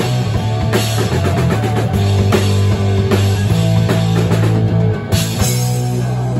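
Rock band playing loud and steady: electric guitar through Marshall amplifiers, electric bass and a drum kit with cymbal hits.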